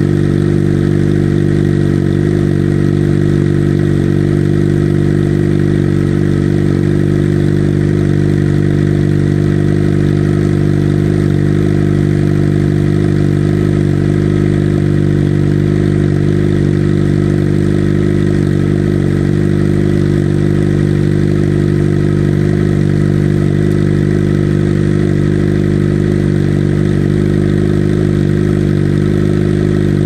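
Suzuki GSX-R sportbike's inline-four engine idling steadily at an even pitch through an aftermarket M4 slip-on exhaust.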